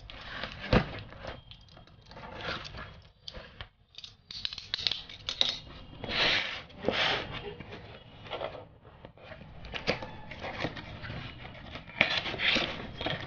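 Utility knife slitting packing tape on a cardboard box, then cardboard flaps being pried open and handled, with irregular scraping, tearing and rustling. A sharp click comes about a second in.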